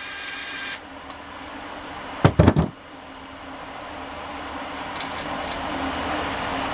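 Small electric impact driver spinning a grooved bolt, used as a thread chaser, in an engine block's bolt hole; its motor whine stops just under a second in. About two seconds in comes a short burst of loud knocks, then a steady low hum.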